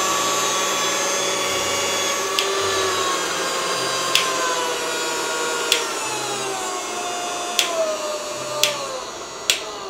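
KitchenAid cordless hand mixer running at top speed and then stepped down through its speeds. Its steady motor whine drops in pitch in steps and grows quieter, with a sharp click at each of about six steps.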